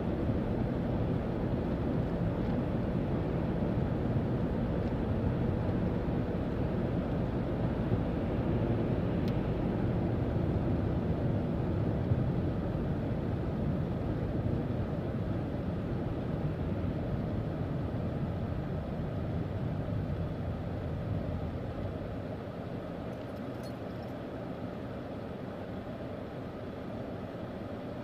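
Steady road and engine noise of a car driving, heard from inside the cabin, easing off near the end as the car slows for a red light.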